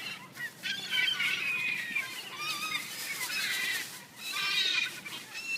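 A crowd of gulls calling over one another as they are fed, their cries overlapping in bursts, with a short lull about four seconds in.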